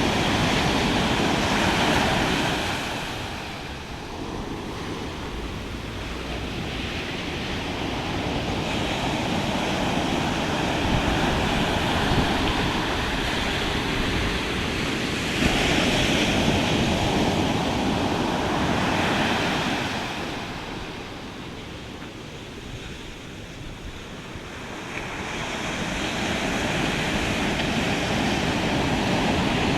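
Ocean surf breaking and washing up the beach: a loud, steady rushing that swells and falls away in long waves, easing into quieter lulls a few seconds in and again a little past the twenty-second mark.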